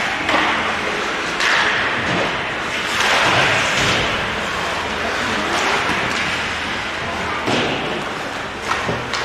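Ice hockey play on an indoor rink: skates scraping and carving the ice, with several sharp thumps and slams of the puck, sticks and players against the boards.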